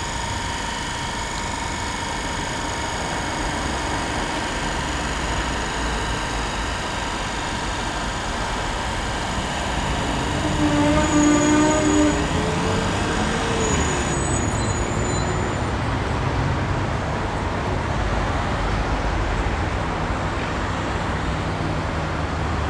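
Steady city traffic noise, louder for a couple of seconds about ten seconds in as something passes, with a few short pitched tones over it at that point.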